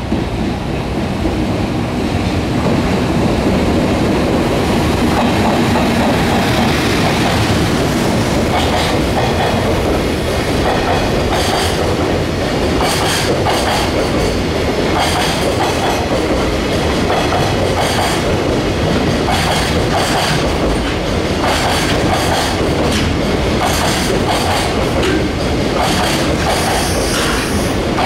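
Freight train of container wagons behind an EF210 electric locomotive rolling past close by: a steady heavy rumble of wheels on rail, growing louder in the first couple of seconds, with repeated clickety-clack of wheels over rail joints from about eight seconds in.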